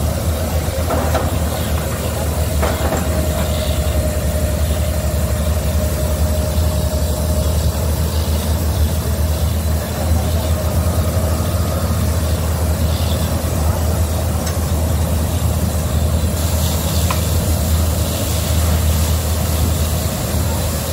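Borewell drilling rig's engine and air compressor running steadily, with the hiss and splash of compressed air blowing water up out of the freshly drilled bore: the gushing water is the sign that the bore has struck water.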